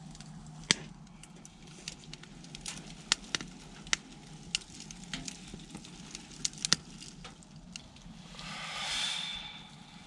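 Wood fire in a titanium backpacking tent stove crackling as it burns down its last fuel, with irregular sharp pops and snaps over a low hiss. A soft rush swells and fades near the end.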